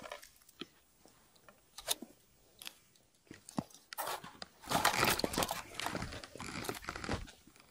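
Snow crunching and rustling as hands work at an ice-fishing hole, lifting a pike tip-up and handling its line. A few scattered clicks come first, then denser crunching from about four seconds in.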